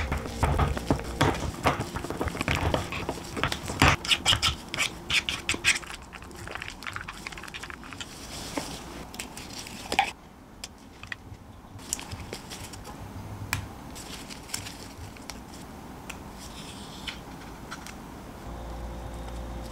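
Wooden spoon stirring a thick peanut-powder mixture in a small glass bowl, with rapid scraping and clicking against the glass for about six seconds. After that come quieter light taps and handling of a plastic container and whole-wheat crackers, with one sharper knock about ten seconds in.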